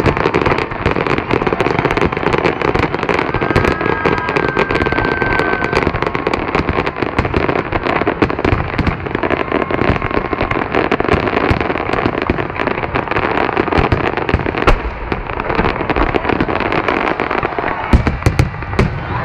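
Fireworks display: a dense, continuous barrage of crackling and popping bursts, with a few heavier booms near the end.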